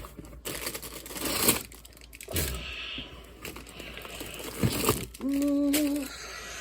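Plastic food wrapping crinkling and tearing, in several bursts of rustling. Near the end there is a brief steady pitched tone lasting under a second.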